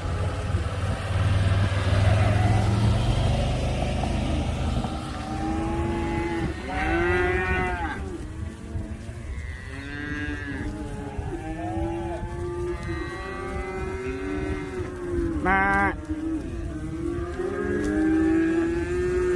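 A low engine rumble for the first few seconds, then dairy cows mooing over and over, many long calls overlapping one another.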